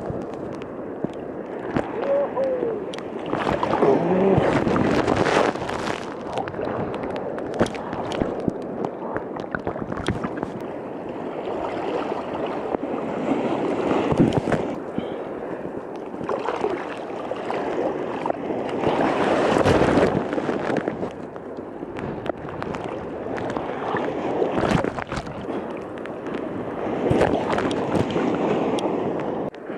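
Heavy surf and splashing water heard from a camera down in the water, with repeated sudden crashes and sloshing as waves break and wash past.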